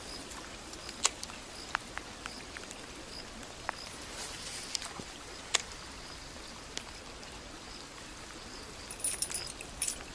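Outdoor ambience with a faint insect chirp repeating about twice a second, scattered sharp clicks and taps, and a quick flurry of rattling clicks near the end.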